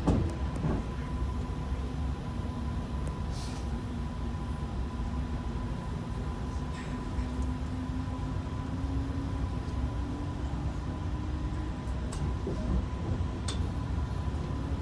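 Tram running along its track, heard from inside: a steady low rumble of wheels on rail with a faint steady whine. A low motor tone rises slightly in pitch midway, and there is a knock right at the start and a few light clicks.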